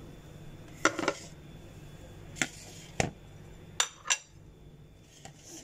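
Dishes handled on a kitchen counter: a ceramic plate of whole spices picked up, moved and set down, giving about six short knocks and clinks.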